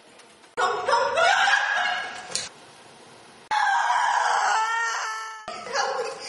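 A person screaming in fright: two long, shrill screams, the second breaking off suddenly.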